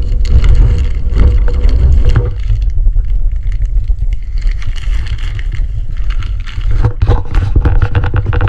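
Tissue-paper wrapping rustling and crinkling as a camera body is pulled from a cardboard box and unwrapped, over a heavy, steady low rumble on the microphone. The crinkling is busiest at the start and again near the end.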